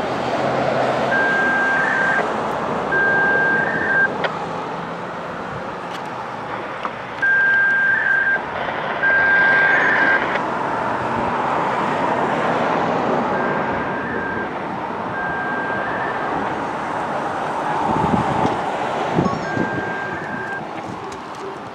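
An electronic beeper sounding one steady high note in pairs, each beep about a second long, with a pair every six seconds or so, over continuous vehicle noise.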